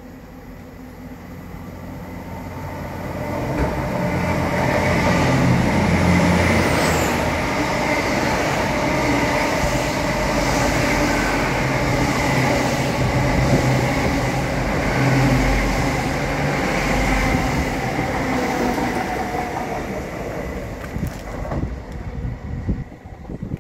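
LNER Azuma (Hitachi Class 800) passing slowly on diesel power, its underfloor engines droning steadily over the run of its wheels on the rails. The sound builds as the train draws in, stays loud while it passes, and fades near the end as it moves away.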